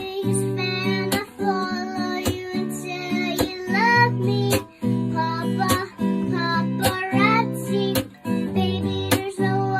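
Music: a song with a voice singing over a strummed acoustic guitar.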